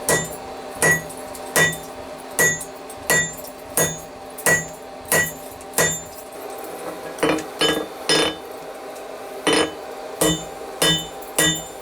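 Hand hammer striking hot 5160 coil-spring steel on an anvil, flattening out the blade. The blows are steady, a little over one a second, and each one rings; there is a short pause about halfway through.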